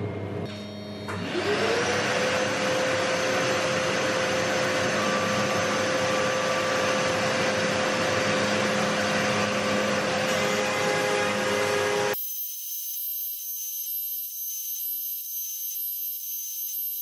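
A shop vacuum starts about a second in, its motor quickly spinning up to a steady whine over a loud rush of air, for dust extraction at a CNC router. It cuts off abruptly about twelve seconds in, leaving only a thin high-pitched whine.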